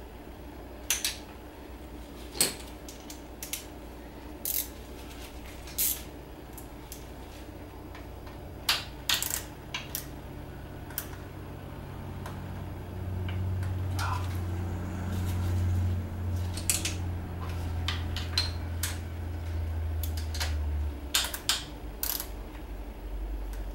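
Hand tools and small metal parts clinking and clicking every second or so. A low steady hum comes in about halfway and stops near the end.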